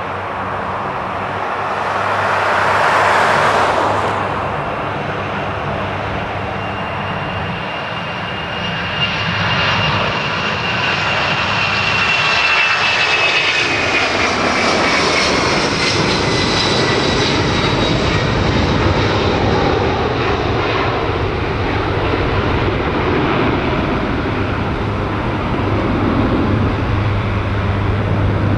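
Boeing C-32's two Pratt & Whitney PW2040 turbofans at takeoff power as the jet lifts off and climbs out past the listener. A high whine in the engine noise drops in pitch over a few seconds midway as the aircraft goes by, and the engines stay loud as it climbs away.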